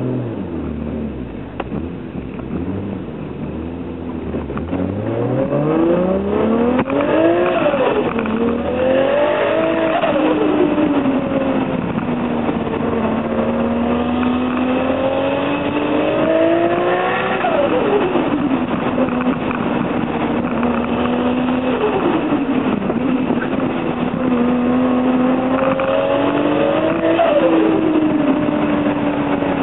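Toyota Supra JZA80's T04Z-turbocharged straight-six engine pulling hard through the gears: the engine note climbs in pitch, drops sharply several times at gear changes or lift-offs, and holds steady at cruising revs in between. The turbo flutters on lift-off.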